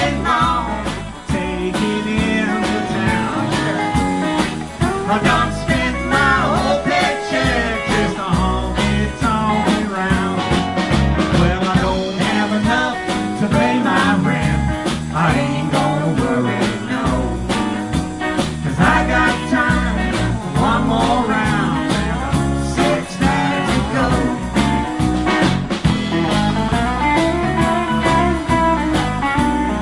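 Live band playing: electric guitars, bass guitar and drum kit, with a lead line that bends in pitch.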